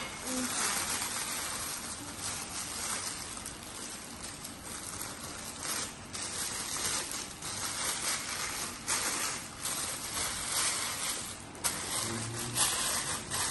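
Crinkling and rustling of white wrapping being pulled off a glass wine cup by hand, with many small crackles.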